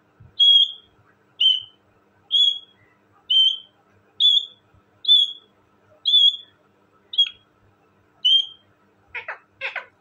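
Indian ringneck parakeet calling: a series of nine short, sharp whistled calls at about one a second, then two harsher, rougher calls near the end.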